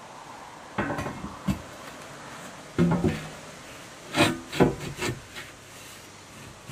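Thick steel plate being offered up to a fiberglass boat's ladder mount and shifted into place, scraping and knocking against it in three short bouts.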